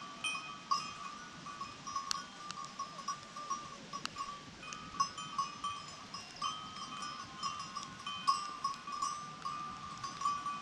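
Bells on grazing goats clinking and ringing irregularly as the herd moves and feeds, with a couple of sharp clicks about two and four seconds in.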